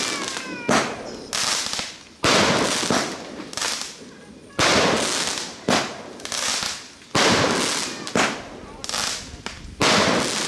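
Fireworks going off: about nine sharp bangs, one every second or so, each followed by a crackling tail that dies away.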